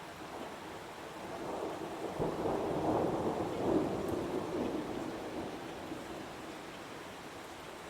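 Heavy rain falling steadily, with a roll of thunder that swells about two seconds in, peaks, and fades away by about five seconds.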